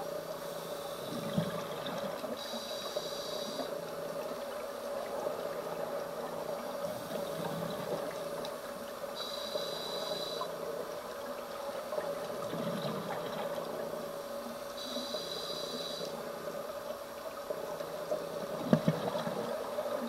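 Scuba diver's regulator breathing, heard underwater through the camera housing. A whistling inhalation lasts about a second every six seconds, with low bubbling exhalations in between. A steady hum runs underneath.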